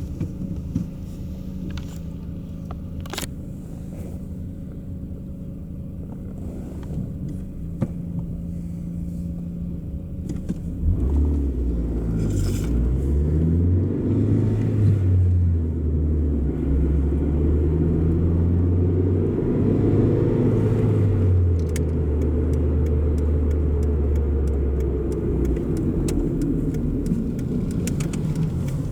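Exhaust of a 2001 Chrysler PT Cruiser's 2.0-litre four-cylinder engine through a new muffler: running low and steady, then from about eleven seconds in much louder and deeper with its pitch shifting under revs for some fourteen seconds before easing back.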